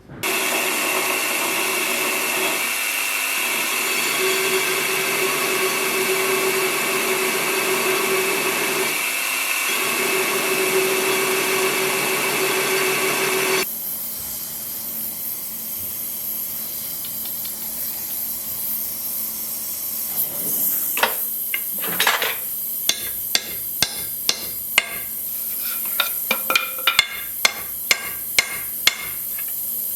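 A power tool runs steadily with a constant hum, easing briefly twice, then stops abruptly. After a quieter stretch comes a run of sharp hammer taps, about one or two a second.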